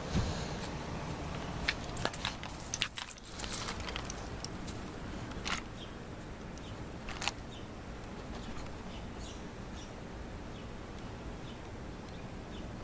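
Scattered metallic clinks and taps from a walking dog's metal chain collar, mostly bunched in the first five seconds with one more about seven seconds in, over a steady outdoor hush.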